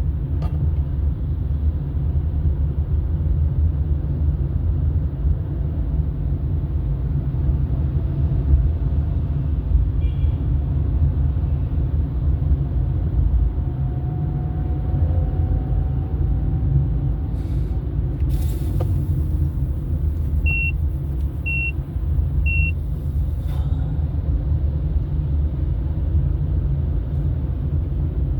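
Car driving, with a steady low rumble of engine and road noise. Three short high beeps sound about a second apart roughly two-thirds of the way through.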